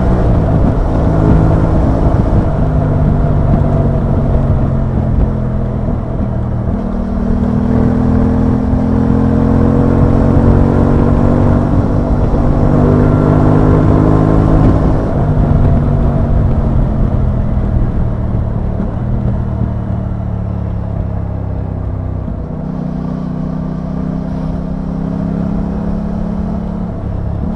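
Aprilia Tuono 660's parallel-twin engine running under way at part throttle. Its pitch drops sharply at the start, climbs slowly through the middle, and drops again twice later as speed and gears change.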